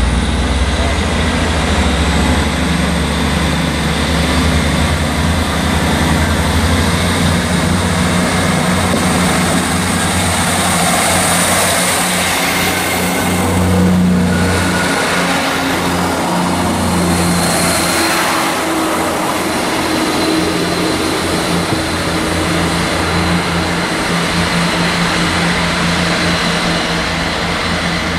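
Class 158 diesel multiple unit pulling away from the platform under power, its underfloor diesel engines running steadily. The train passes close by about halfway through, with wheel and rail noise, and is still heard heading away near the end.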